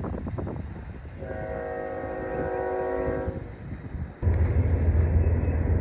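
A horn sounds steadily for about two seconds. Then a loud, low, steady motor hum starts abruptly about four seconds in.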